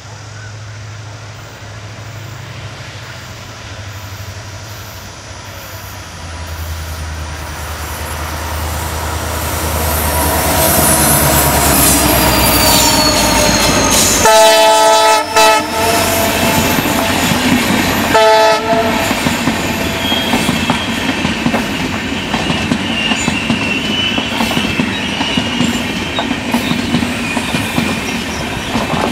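WDP4B diesel locomotive (EMD 16-cylinder two-stroke engine) running closer and louder as it approaches, then sounding its horn about halfway through and again briefly a few seconds later. The passenger coaches then roll past with wheel clatter and a high wheel squeal on the curve.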